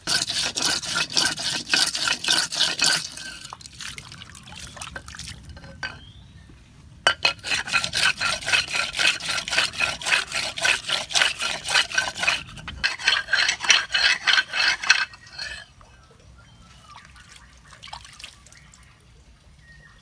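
Cast copper knife blade being ground back and forth on a wet flat stone, a rapid gritty scraping at about three strokes a second. It comes in two runs, a short one at the start and a longer one from about a third of the way in, with quieter pauses between.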